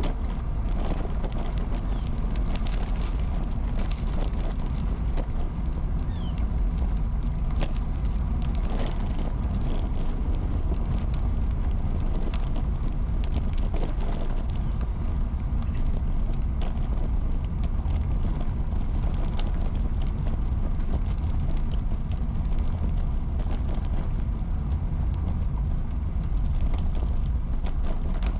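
Steady riding noise from an early-1970s Peugeot UJ-10 ten-speed road bicycle under way: wind rumble on the camera and tyres rolling on pavement, with scattered light clicks.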